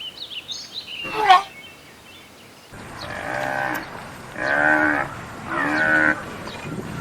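Sheep bleating: three drawn-out bleats, each under a second, in the second half, after a shorter call with some high chirps about a second in.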